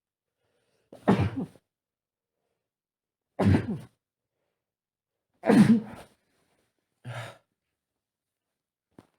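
A man's muffled triple sneeze: three stifled sneezes about two seconds apart, followed by a fainter short burst and a small click near the end.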